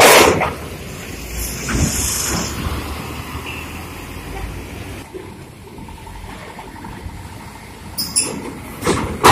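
Large intercity bus engines running with a low rumble, and a short hiss of air brakes about a second and a half in. A few sharp knocks come near the end.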